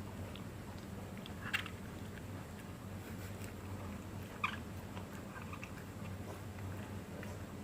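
Japanese Spitz chewing a bubble-type dental chew: small wet clicks of chewing throughout, with two short squeaks from the chew about a second and a half in and again about four and a half seconds in.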